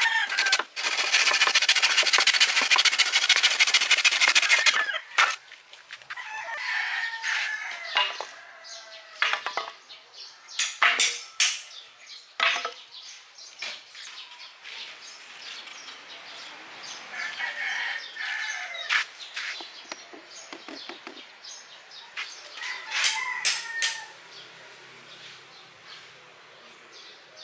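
A handsaw cuts through a wooden slat for about four seconds. Then chickens cluck and a rooster crows, with scattered knocks of loose wooden pieces.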